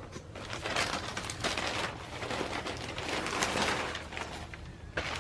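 Plastic packaging crinkling and rustling as it is handled and opened, in dense bursts of crackle through most of the stretch, easing off about four seconds in.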